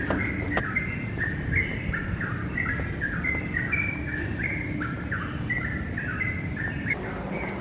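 Birds chirping in a quick, continuous run of short notes, over a steady high-pitched insect drone that cuts off near the end.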